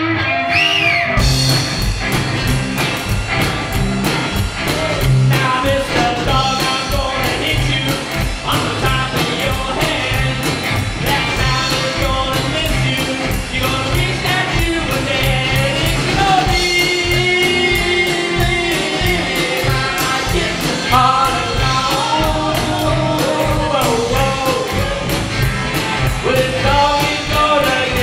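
Live rockabilly band playing with singing: upright bass, electric guitars and drum kit under a male lead vocal. The full band comes in with drums and bass about a second in, then keeps a steady beat.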